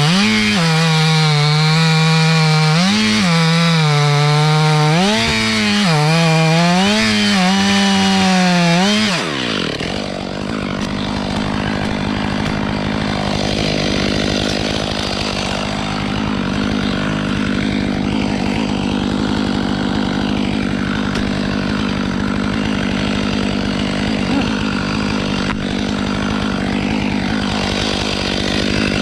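Two-stroke chainsaw running and cutting wood, its revs rising and falling over and over. About nine seconds in the revs drop sharply, and a steady, noisier chainsaw sound carries on after that.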